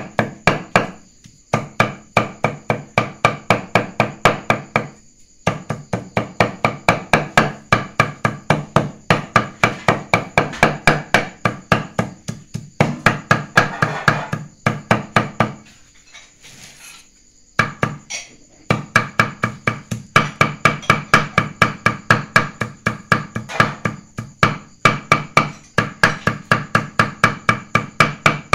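Cleaver mincing raw buffalo meat on a thick round wooden chopping block: rapid, even chops about three or four a second, each a short ringing knock, with a longer pause a little past the middle.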